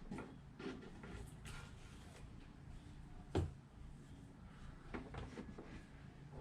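Faint clicks and knocks of plastic being handled as an RC car's body is fitted onto its chassis and side plates, with one louder knock about halfway through.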